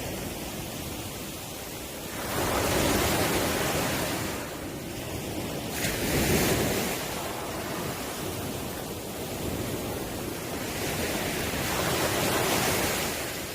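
Ocean surf: waves breaking and washing ashore, the rush of water swelling and fading in slow surges, loudest three times.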